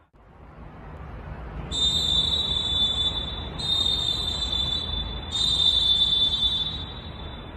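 Molten Dolfin pealess referee whistle blown in three long, steady, shrill blasts back to back, each lasting under two seconds, over a steady rushing background noise.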